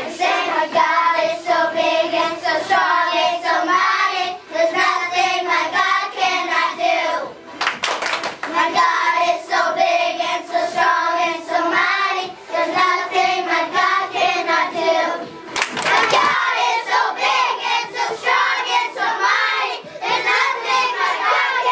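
A group of young children singing a song together, loud and steady, with short breaks in the singing around 8 and 16 seconds in.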